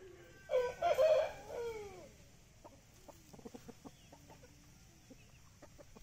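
A rooster crows once, about half a second in, a call of about a second and a half with a falling pitch at the end. After it come soft clucks and faint scratching in the dirt.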